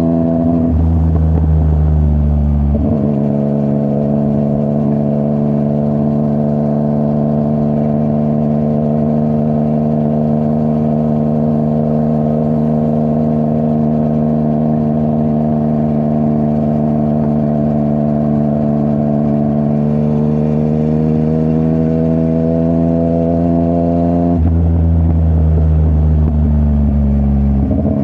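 Yamaha MT-09's CP3 inline-three engine through a full Akrapovic exhaust, running under way at a steady engine speed for most of the stretch. The engine note shifts about a second in and again near the end, as the throttle or gear changes.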